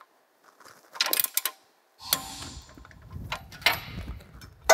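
Torque wrench ratcheting in short runs of sharp metallic clicks as a shock absorber mounting bolt is tightened to the manufacturer's specified torque. A low hum comes in about halfway.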